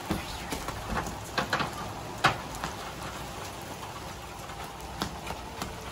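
Heavy rain pattering steadily on a flooded concrete rooftop. A few sharp splashes cut through it, the loudest about two seconds in.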